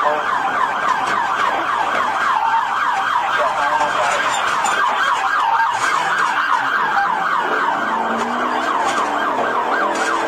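Police car siren in a fast yelp, its pitch sweeping up and down several times a second.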